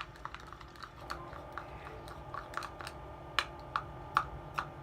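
Irregular light clicks and taps of a plastic shampoo bottle being handled and squeezed to get the last of it out, over a faint steady hum.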